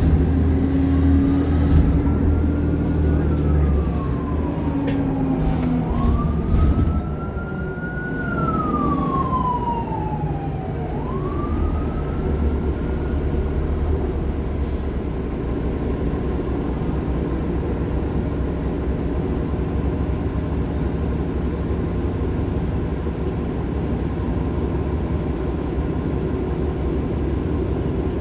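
A wailing siren rising and falling in pitch about three times, fading out about halfway through, over the steady running of a Nova LFS Artic hybrid bus with its Cummins ISL9 diesel and Allison hybrid drive.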